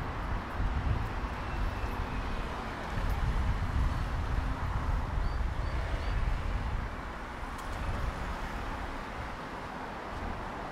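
City street ambience with the low rumble of passing road traffic, which eases off about two-thirds of the way through. Three short high chirps come about halfway.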